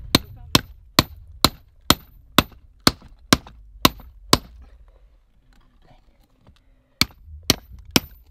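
Hammer striking a cold chisel set into a block of volcanic rock, splitting the rock open to look for topaz crystals. Sharp metal-on-metal blows come about two a second, ten in a row; after a pause of a couple of seconds three more come near the end, each with a short high ring.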